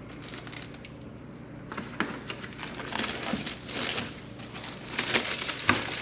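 Cardboard product box being opened with a small folding knife, its seal cut and flaps pulled apart: irregular scraping, crinkling and crackling that starts about two seconds in, with a few sharp clicks near the end.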